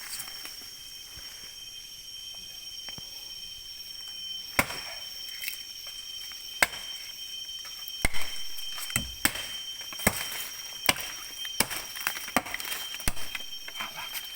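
Sharp chops of a blade striking a tree trunk, about a dozen irregular strokes beginning about four seconds in and coming faster toward the end: cutting into the wood to check it for agarwood (gaharu) resin.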